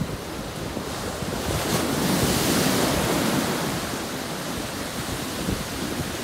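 Ocean surf breaking and washing up a sandy beach, a steady rushing that swells as a wave comes in about two seconds in, then eases off.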